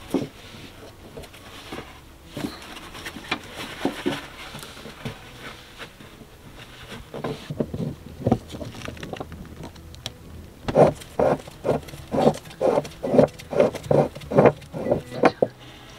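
Pliers and gloved hands working the corroded brass cap of a boat's anti-siphon vented loop: scattered clicks and metal handling, then about two-thirds of the way through a quick run of about a dozen knocks, roughly two or three a second, as the cap is worked loose.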